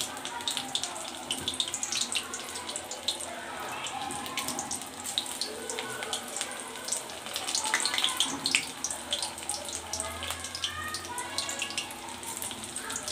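Hot refined oil sizzling and crackling in a steel kadai as gram-flour fritters of drumstick flowers deep-fry, with a fresh ball of batter lowered into the oil near the end.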